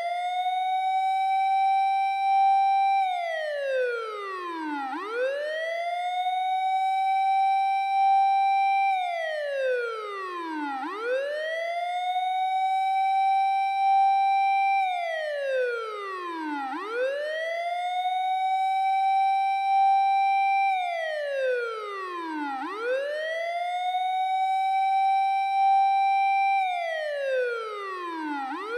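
App-simulated Japanese fire engine siren wailing in a steady six-second cycle: the tone rises, holds its top note for a couple of seconds, then slides down and rises again, about five times over.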